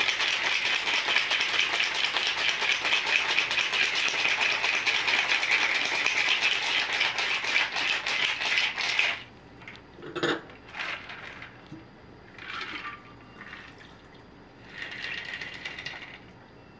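Ice rattling fast and hard inside a metal cocktail shaker being shaken, stopping sharply about nine seconds in. Then comes a sharp knock as the shaker is handled, a few light clinks, and near the end a short run of the cocktail being poured from the shaker into a glass.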